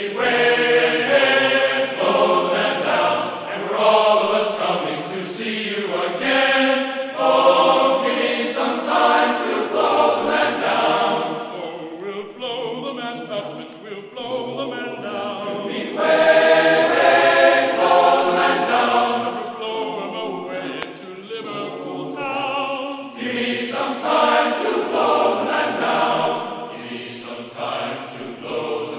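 Background music: a choir singing a sea shanty.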